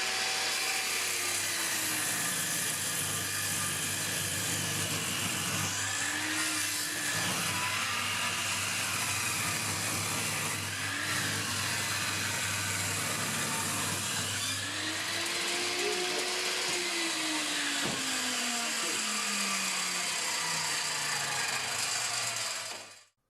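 An electric woodworking power tool running on spruce under steady load, its pitch dipping and recovering several times as the wood is fed through; the sound cuts off abruptly near the end.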